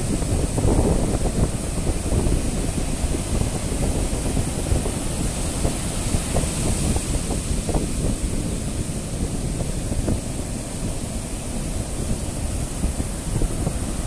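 Rough, wind-driven surf breaking and washing up a sandy beach, with strong wind buffeting the microphone in a steady low rumble.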